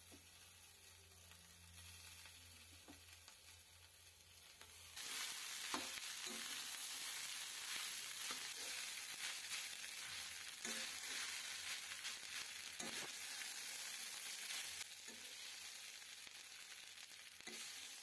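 Cooked rice sizzling as it is stir-fried in a hot steel kadai with spiced vegetables, a steel spatula scraping and tossing it against the pan now and then. The sizzle steps up suddenly about five seconds in and stays louder.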